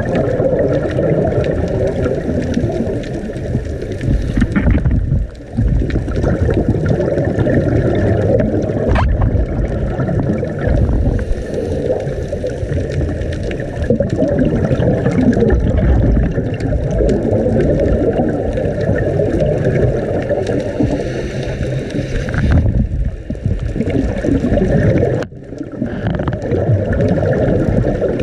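Underwater churning and rumbling of storm-driven wave surge, recorded about 50 feet down. The noise is low and steady, dropping out briefly about five seconds in and again near the end.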